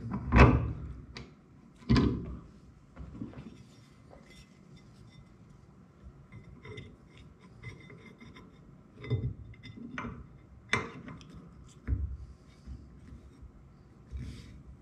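Steel hand tools worked on an air tank valve clamped in a bench vise: scattered knocks and clinks of metal on metal, the loudest about half a second in and at two seconds, then a cluster of knocks near the end, with faint scraping and ticking between.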